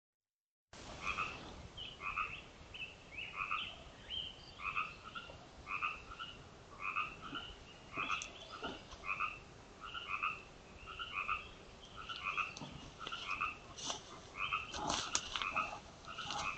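Frogs calling in a chorus: short croaking calls repeating about twice a second. A few brief clicks or rustles come through in the second half.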